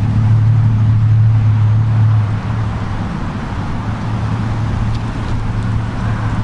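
FPV quadcopter in flight: a steady, loud drone of motors and propellers mixed with wind noise, its low hum easing slightly about two seconds in.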